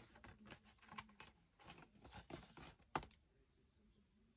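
Faint rustling and light tapping of a sheet of paper being handled on a cutting mat, with one sharper tap about three seconds in, then near silence.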